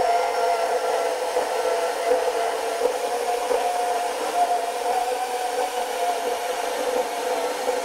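Older Milwaukee M12 brushed compact band saw with a 12–14 TPI blade, cutting through metal stock at the limit of its capacity. It runs with a steady, unchanging hum and rasp as the blade works slowly through the cut.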